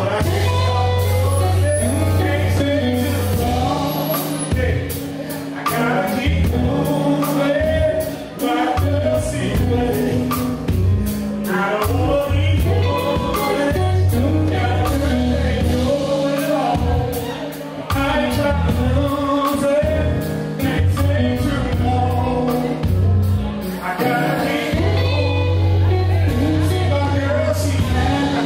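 A live band playing a song with singing: keyboard, bass and drums under the vocals, with a steady beat.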